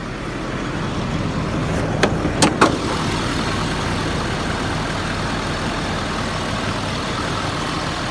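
Ford F-550's 6.7 L Power Stroke V8 turbodiesel idling steadily, with a few sharp clicks about two seconds in.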